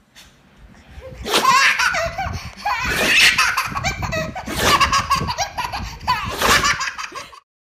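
Person laughing hard in repeated bursts, building up about a second in.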